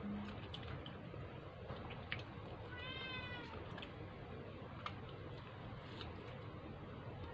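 A cat meows once about three seconds in, a short call that rises and then falls in pitch, over a low steady hum and a few faint clicks.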